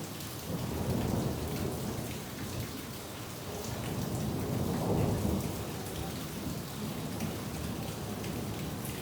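Steady rain falling, with individual drops ticking, while thunder rumbles low in two rolling swells: one starting about half a second in, and a stronger one around four to five seconds in.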